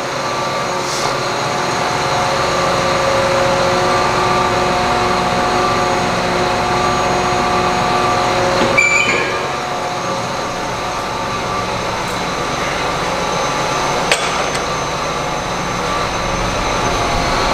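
John Deere tractor's diesel engine running steadily with a steady whine, and two brief metallic clanks, about nine seconds in and about fourteen seconds in.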